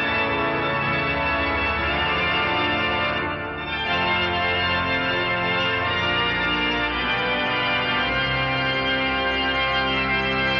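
End-credits music: sustained keyboard chords, held steady and changing to a new chord a couple of times.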